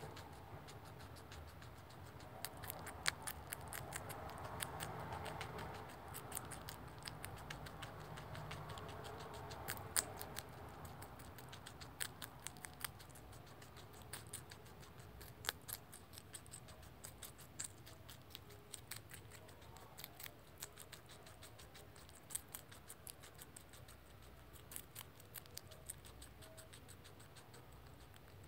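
Rex guinea pig chewing celery: a long run of small, irregular crunching clicks as its teeth cut through the stalk, coming thick and fast in the first half and more spaced out later.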